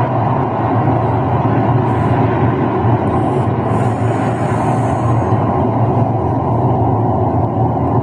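Recorded wind blowing hard: a steady low rushing noise, with a faint higher hiss for a couple of seconds in the middle.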